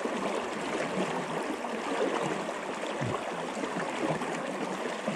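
River water flowing and gurgling steadily close to the microphone.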